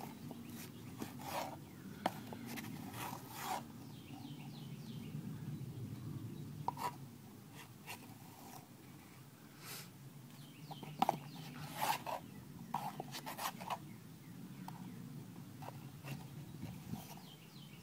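Small scattered clicks, taps and scrapes of a teaspoon scooping baking soda and tipping it onto a tissue, over a low steady room hum.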